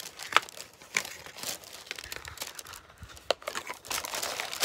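Tissue paper in a gift box crinkling and rustling as hands rummage through it and lift out a product, with a few sharper crackles.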